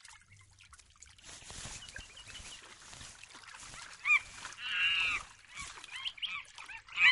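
A few short, high-pitched animal calls: single squeaks about four seconds in, a longer call just after, then several quick squeaks near the end, over faint background sound.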